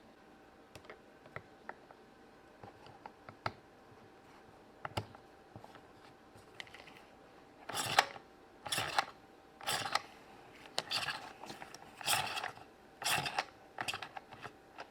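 Small plastic toy pieces being handled and set down: scattered light clicks, then from about halfway a run of louder rustling clatters roughly once a second.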